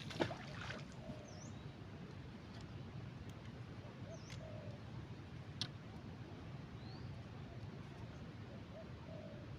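Birds calling now and then in the open air: short low calls every few seconds and a few thin, high chirps, over a steady low background rumble. A sharp click sounds just after the start and another in the middle.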